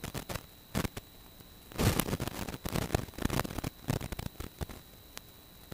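Irregular crackling bursts on a motorcycle ride recording, clustered from about two to five seconds in, over a steady hiss with a thin high whine. The uploader puts the bad audio down to a GP10 audio unit that needed a firmware update.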